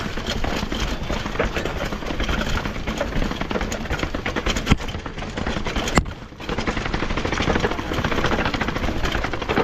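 Mountain bike rattling over a rough trail, with wind rushing over the camera microphone: a steady rush dotted with clicks and knocks. A sharp knock comes about six seconds in, then a brief lull.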